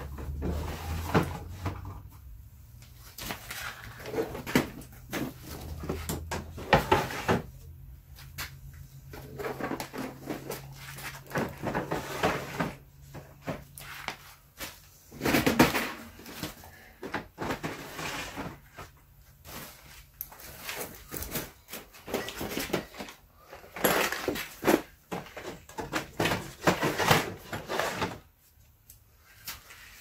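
Harbor Freight plastic parts storage cases being slid into the wooden slots of a shelf rack: repeated irregular scrapes, clacks and knocks of plastic against wood.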